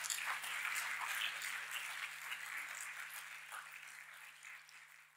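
Audience applauding, a dense patter of many hands clapping that slowly fades away.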